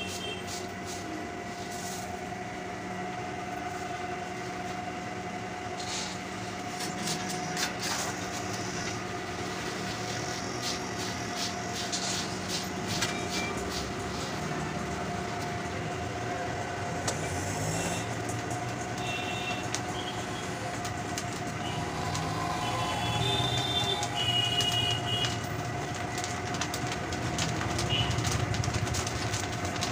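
Dried peas being scooped with a metal mesh ladle and stirred in a large iron wok for roasting: scattered rattling clicks and scraping over a steady humming drone.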